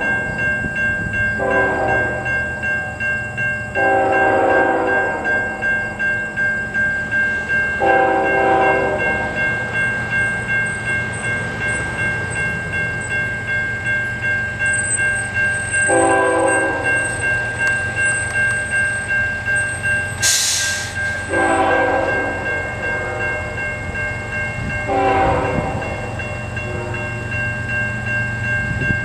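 Horn of an approaching CN GE ES44AC freight locomotive sounding a series of chord blasts, one to two seconds each, whistling for the grade crossings, over the steady ringing of a nearby crossing-signal bell. A low rumble lies underneath, and a brief loud hiss comes about twenty seconds in.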